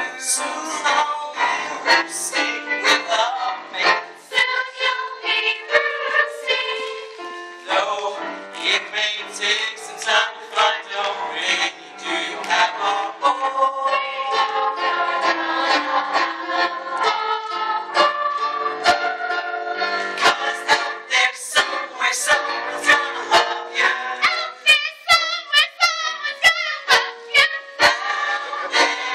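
Voices singing a show tune over musical accompaniment.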